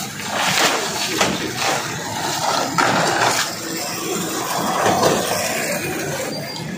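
Woven plastic sacks of tube ice being lifted, shifted and set down: rustling and scraping of the sack cloth, with several sudden knocks.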